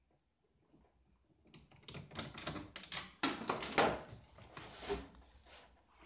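Rapid clicking and clattering of a screwdriver against hard plastic dashboard trim as it is handled and withdrawn. It starts about a second and a half in, is loudest around the middle, and thins to a few scattered knocks near the end.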